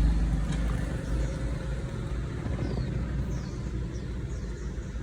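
Toyota Prado engine ending its run: the steady engine note fades out within the first second, leaving a low, quieter rumble.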